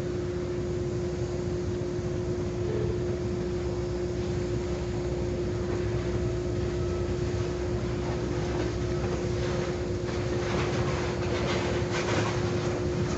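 Diesel locomotive running with a low rumble and a steady hum. From about ten seconds in, rail cars begin clicking and knocking as they roll on the track.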